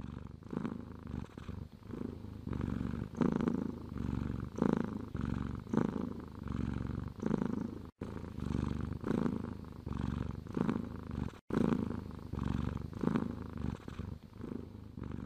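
Tabby cat purring close up, the purr pulsing with its breathing a little under once a second.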